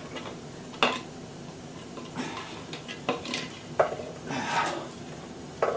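Metal parts of a column sump pump's float switch and float rod clinking and scraping as they are fitted by hand: about four short sharp clicks, with rubbing and scraping between them.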